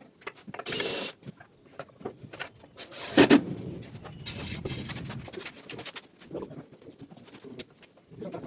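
Irregular knocks and clatter of wooden chair parts being handled during gluing and assembly, with one loud knock about three seconds in.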